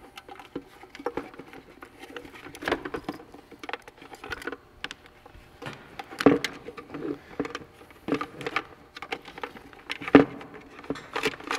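Handling noise from a hard plastic sonar pod lid and a power cable being fed through it: irregular small clicks, knocks and rubbing, with two louder knocks about six and ten seconds in.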